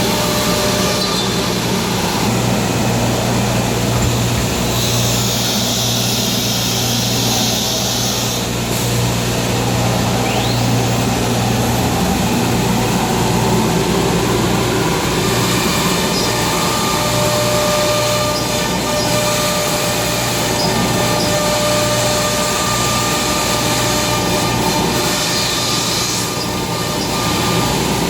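CNC router running: a steady machine hum with a few held tones, and a higher hiss that comes and goes in stretches of a few seconds.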